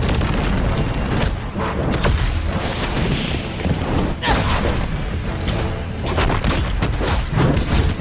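Cartoon battle sound effects: a dense run of booms and impacts over a constant low rumble, with louder hits around four seconds in and again near the end, and music underneath.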